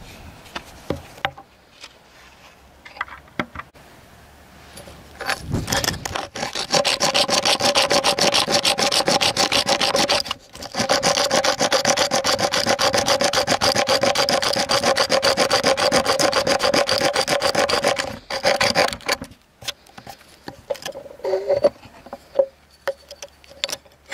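Flint tool worked rapidly back and forth against wood, a loud, steady rasping with a ringing pitch through it and one short pause partway. Light knocks and clicks of handling stone on wood come before and after.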